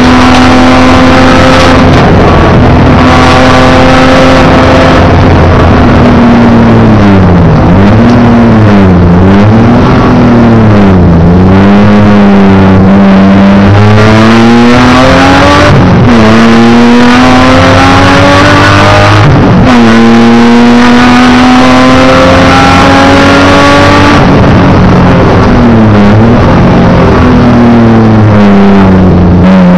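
Racing car's engine heard from inside the cockpit, very loud throughout. It holds a steady pitch at first, swings up and down several times as it changes gear, climbs in pitch with sudden drops at the upshifts, and falls away near the end.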